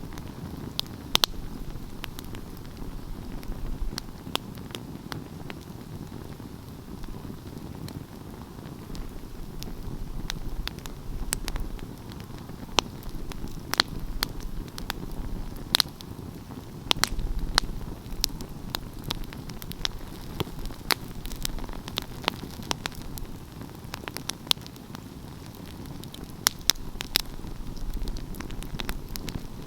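Open wood fire burning: a low steady rumble of flames with frequent sharp, irregular crackles and pops from the burning pine.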